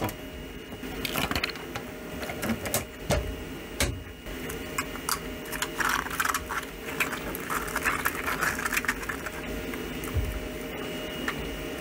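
Print-in-place articulated PETG slug, its plastic segments clicking and rattling against each other as it is bent and twisted by hand: irregular clicks over a steady faint hum.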